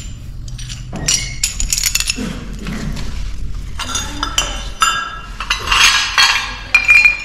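Broken Talavera ceramic plate shards clinking against each other as the pieces are picked through: a string of sharp clinks at uneven intervals, some ringing briefly.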